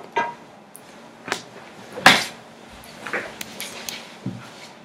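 Five short knocks and clicks, about a second apart, the loudest about two seconds in.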